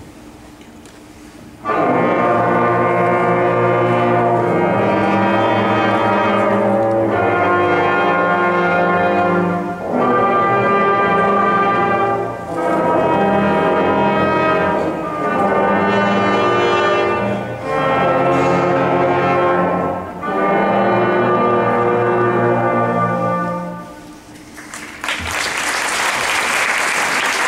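A fifth-grade brass band of trumpets, trombones and baritones playing a slow series of held chords, each about two and a half seconds long with short breaths between. The playing stops about 24 seconds in and audience applause starts a second later.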